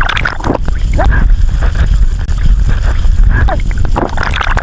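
A loud, distorted sound clip with a voice in it, played on a loop: the same few seconds repeat about every four and a half seconds.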